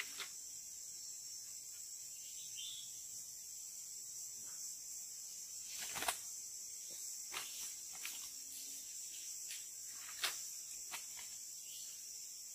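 Steady high-pitched insect chorus, with a few sharp taps scattered through it, the loudest about six and ten seconds in.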